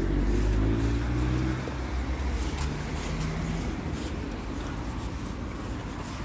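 A car passing on the road alongside, its engine note falling as it goes by and fading out after about a second and a half, leaving a lower steady traffic rumble.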